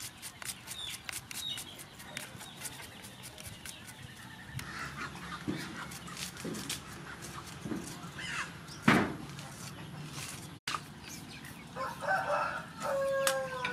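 Chickens clucking, with a rooster crowing near the end. Under them, quick scraping clicks of a hand-held vegetable shredder cutting cucumber and shallot, and one loud knock about nine seconds in.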